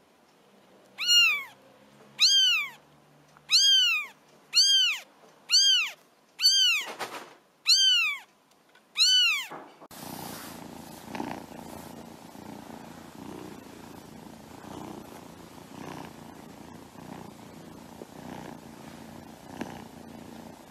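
Newborn Persian kittens mewing: about eight high, arching cries roughly a second apart. About halfway through it changes to a Persian kitten purring steadily.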